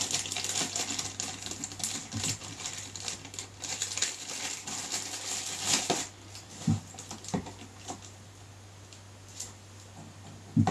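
Plastic packaging bag crinkling and rustling as a cable is unwrapped from it, dense and crackly for about six seconds. Then it goes quieter, with a few separate light clicks and knocks as the cable and its connector are handled, the sharpest one near the end.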